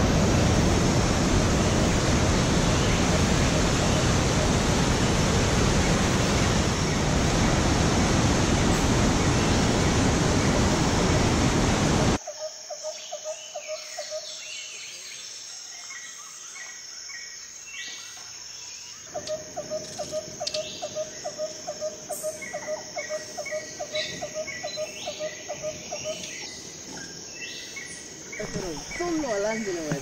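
River rapids and a small waterfall, the water rushing loudly and steadily. About twelve seconds in this cuts off to much quieter birdsong: short high chirps and a call repeated two or three times a second.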